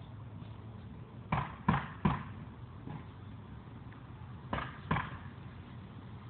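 A bowling ball being struck with a long-handled tool: sharp knocks, three in quick succession about a second in and two more a few seconds later. The ball is already cracked open, its core hard like cement.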